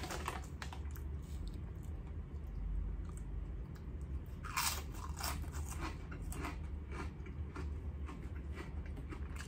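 A potato chip bitten and chewed close to the microphone: a sharp crunch of the first bite about halfway through, then a run of smaller crunching chews, over a low steady hum.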